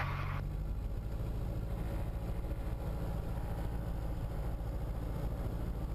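Diamond light aircraft's piston engine running at taxi power, a steady low drone heard from inside the cockpit, with the propeller turning.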